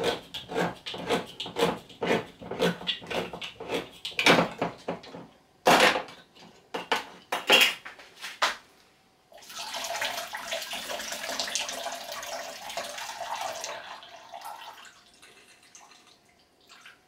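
Hand-held can opener cranked around a can of sweet peas, clicking about twice a second, then a few louder clacks as the lid comes free. About nine seconds in, the liquid from the can is poured off into a sink, a splashing rush lasting about five seconds.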